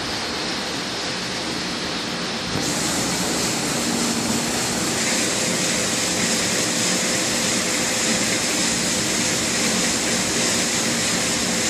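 Industrial batch nut frying machine running: a steady mechanical hum and hiss from its motors and the hot oil frying. The noise gets louder and brighter about two and a half seconds in.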